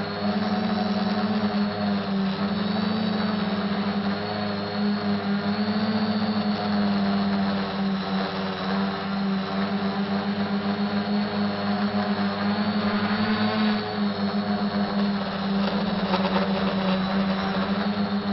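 SK450 quadcopter's four electric motors and propellers running in flight: a steady multi-pitched hum that wavers slightly in pitch.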